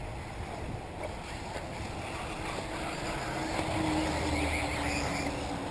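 Motor whine of 1/8-scale electric RC off-road buggies running on the track, a tone that comes in about two and a half seconds in, swells and fades near the end, over wind noise on the microphone.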